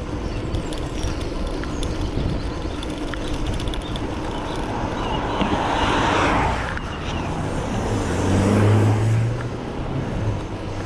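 Road traffic heard from a moving bicycle over steady wind rumble on the microphone. A vehicle passes about six seconds in, its tyre hiss swelling and fading, and a lower engine hum from another vehicle follows near the end.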